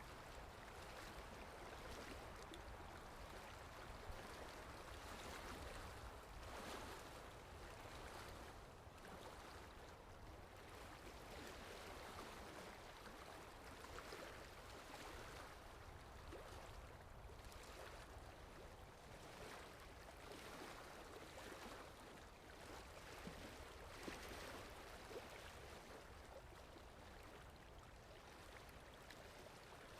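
Faint, steady wash of sea waves, swelling and easing gently.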